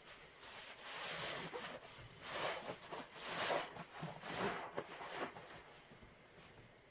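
Two sudsy sponges squeezed repeatedly in rubber-gloved hands, each squeeze a wet, crackling squelch as foam is pressed out of them; about five squeezes, roughly a second apart.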